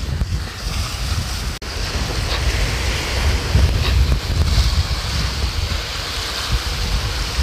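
Sea waves breaking and washing over shore rocks, with wind buffeting the microphone in a steady low rumble.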